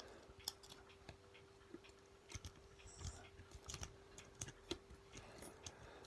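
Faint, irregular small metal clicks and ticks of a lock pick working the pin tumblers inside a lock cylinder, over a steady faint hum.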